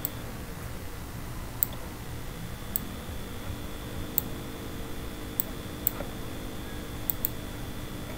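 Computer mouse clicking: eight sharp single clicks at uneven intervals, about one a second, over a low steady hum.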